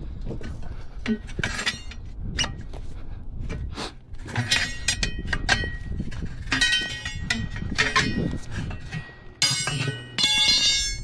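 Steel hand tools striking and clinking against a steel wheel and tire during manual tire breakdown: a series of separate metallic knocks and clinks, some ringing, coming more often in the second half.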